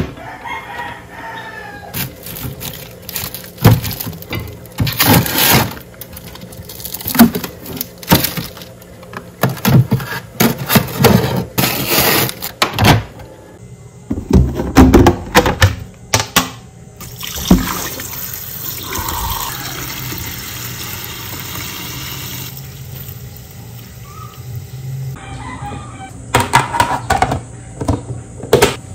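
Kitchen handling sounds: a freezer being opened and a plastic food container knocking and clattering in a stainless-steel sink, then a tap running steadily for several seconds to defrost meat, with background music. A chicken calls briefly near the start.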